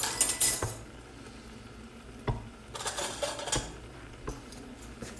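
A metal utensil clinking and scraping against a cooking pot, in two short bouts: one at the start and another about three seconds in.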